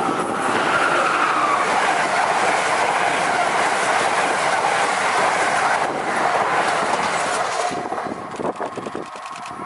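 Amtrak passenger train of stainless-steel Amfleet coaches passing close at speed: a loud, steady rush of wheels on rail and air. About eight seconds in the sound drops away as the last car goes by and the train recedes, leaving faint clicks of wheels over the rail joints.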